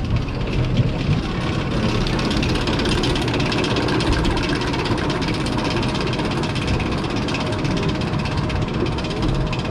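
Roller coaster lift-hill chain hauling a spinning-coaster car up the incline, a steady fast mechanical clatter of chain links and clicking ratchets, heard from on board the car.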